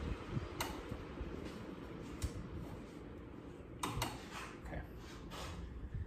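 Emerson Stratojet ceiling fan running, a steady rush of air with a low rumble that fades as the blades slow down. A few light, irregular ticks sound over it.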